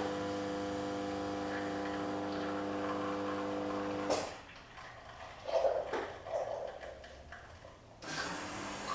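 The built-in coffee grinder of a Carimali Armonia super-automatic espresso machine runs with a steady motor hum for about four seconds, grinding beans fresh for the cup, then stops abruptly. After it come a few faint mechanical sounds, and a steady whirr starts near the end.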